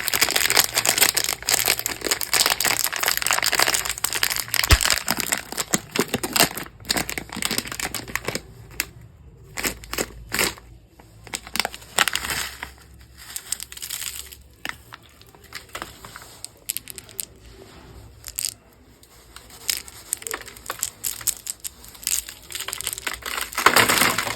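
Chocolate packaging handled: continuous crinkling and crumpling for the first eight seconds or so, then scattered crinkles and clicks.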